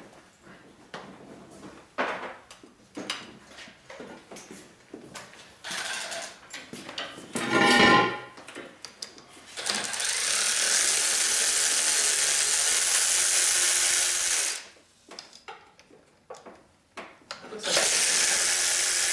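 Handheld power tool running in two long steady runs of several seconds, after a string of clicks and knocks from tools being handled and a brief whine about eight seconds in.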